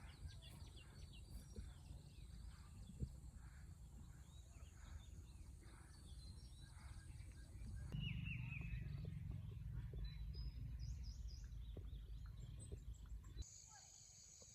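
Outdoor country ambience: low wind rumble on the microphone, with scattered faint bird chirps and a short burst of calls about halfway through. Near the end the rumble drops away and a steady high insect chirring takes over.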